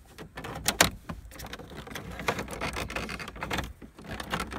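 Scattered clicks and knocks of a wood-grain plastic dash trim panel being pulled and popped off its clips, with the sharpest snap about a second in.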